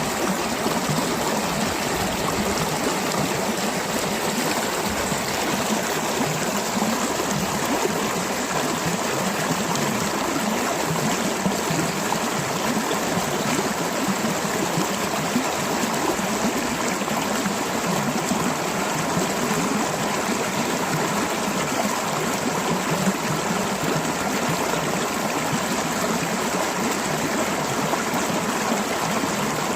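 Mountain stream flowing over rocks, gurgling steadily and without a break.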